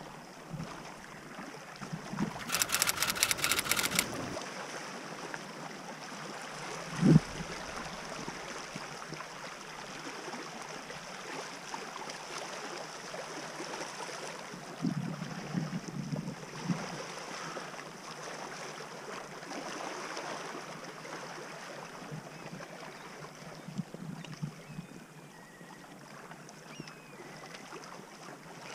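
Open lakeshore ambience: a steady soft hiss of wind and lapping water. About three seconds in there is a burst of rapid clicking, and about seven seconds in a single sharp thump, the loudest sound here. A few softer knocks follow later.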